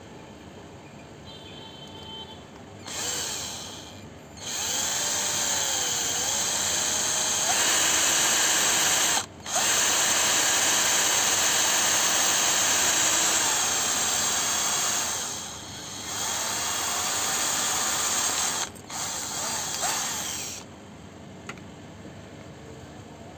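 Power drill boring holes through the metal plate of an LED bulb. It runs in long stretches with a few short stops, and its pitch dips and rises briefly in the first stretch.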